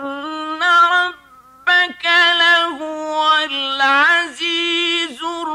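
A man's voice reciting the Quran in a slow, melodic chant, drawing out each syllable into long held notes that waver and bend, with a brief dip in loudness about a second in.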